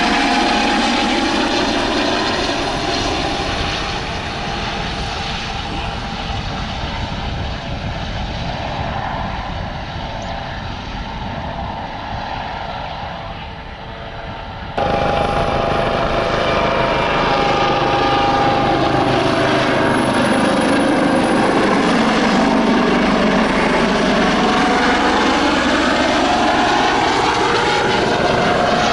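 Eurocopter AS365 N3+ Dauphin helicopter in flight: turbine and rotor noise with the steady whine of its fenestron tail rotor. It fades as the helicopter flies away, jumps back to full loudness about halfway through, then sweeps slowly in pitch as it passes close by.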